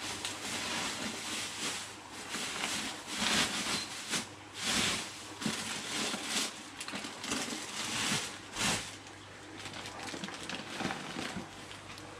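Plastic fish-transport bags rustling and crinkling as they are handled, in irregular bursts, with a steady low hum underneath.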